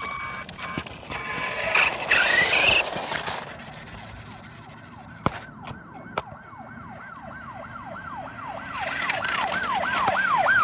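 A siren yelping in fast repeated falling sweeps, about three a second, growing steadily louder toward the end. It is preceded in the first few seconds by a loud rushing noise.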